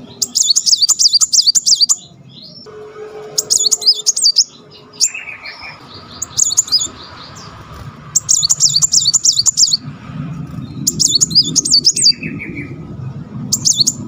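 Brown-throated sunbird (kolibri muncang) singing in repeated bursts of very fast, tight rolling trills, high-pitched, about seven bursts with short gaps between them.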